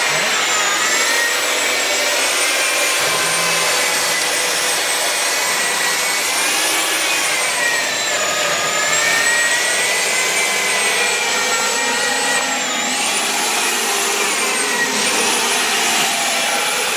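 Hilti DD 200 core drill's electric motor running under load with a 252 mm core bit, a steady loud whine whose pitch sags and recovers a few times as the bit bites into the cut.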